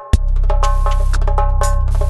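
Solo percussion with live electronics: quick, irregular strikes several times a second, each ringing at the same few pitches, over a loud low electronic drone that starts abruptly with a sharp click just after the start.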